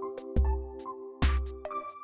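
Background music with a steady beat: a kick drum about once a second under held synth chords.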